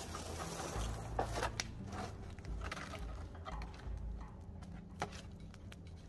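Footsteps crunching in snow and branches being handled, a scatter of sharp snaps and clicks over a low uneven rumble.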